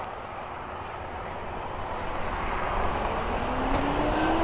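A vehicle engine running, getting louder from about halfway through, its pitch rising slowly.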